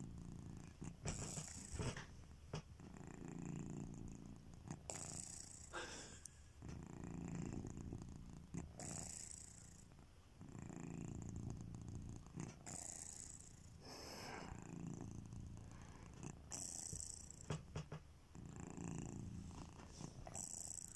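Sleeping domestic cat snoring softly in slow, even breaths: a faint low rumble that swells and fades about every four seconds, around six breaths in all.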